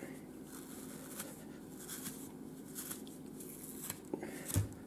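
Soft, repeated scratching strokes of a dog flea comb drawn through a clump of marble fox fur, combing out the underfur, with a brief soft thump near the end.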